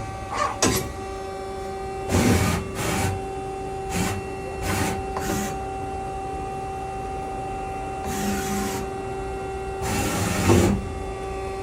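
Mazak QTU 250 CNC turning center running under power: a steady hum with a series of short whirring, hissing bursts from the machine's moving parts, the longest near the end.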